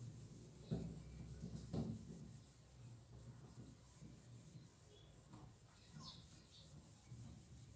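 A cloth wiping marker writing off a whiteboard: faint rubbing strokes, the two loudest about one and two seconds in.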